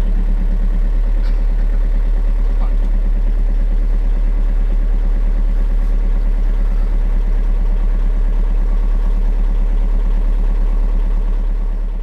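Volkswagen Passat B6 1.9 TDI four-cylinder turbodiesel idling steadily just after a cold start at −12 °C, heard from inside the car. The sound fades out near the end.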